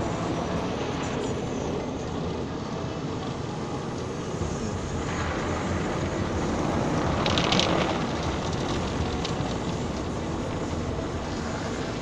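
Automatic car wash heard from inside the car: a steady rush of water spray and washing machinery on the body and windshield, swelling louder with a hissing burst of spray a little past the middle.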